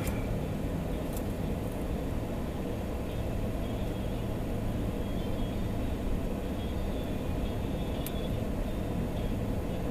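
Steady low rumble of vehicle and traffic noise, with a faint click about a second in and another near the end.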